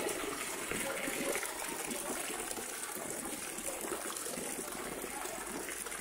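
Garden fountain splashing steadily, with small water jets arching into a tiled channel of water.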